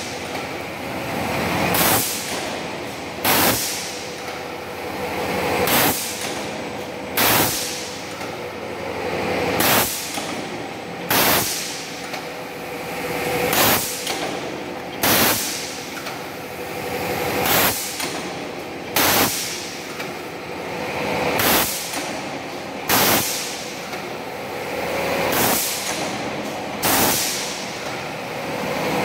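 DIN rail roll-forming line running automatically: sharp metal strikes of the power press and cut-off come in pairs about a second and a half apart, repeating about every four seconds. Between them the machine runs with a steady noise and a faint hum.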